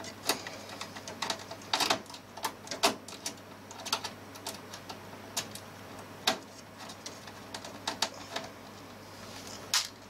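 Scattered, irregular clicks and taps of hands working inside a PC tower case, handling cables and parts while freeing the motherboard.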